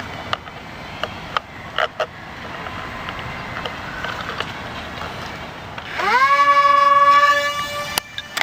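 Small electric R/C airplane motor and propeller spinning up with a quickly rising whine about six seconds in, holding a steady high whine for about two seconds, then cutting off with a click. Before it, a few scattered handling clicks are heard over outdoor background noise.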